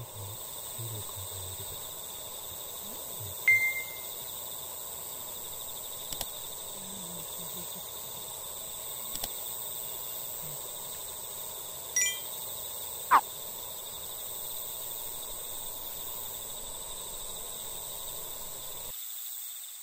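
Outdoor evening ambience at a lakeside campsite: a steady background with a constant high thin whine, broken by a few short sharp chirp-like tones, the loudest about three and a half and thirteen seconds in. It stops abruptly near the end.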